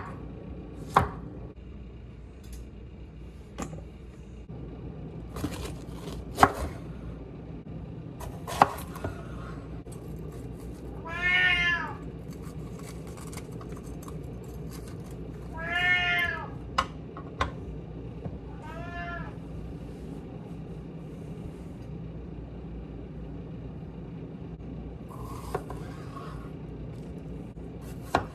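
Chef's knife cutting a red bell pepper on a wooden cutting board: scattered sharp chops. A cat meows three times in the middle.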